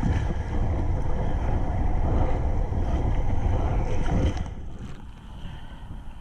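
Wind buffeting the microphone along with water noise from rough lake waves: a heavy low rumble that drops off sharply about four seconds in.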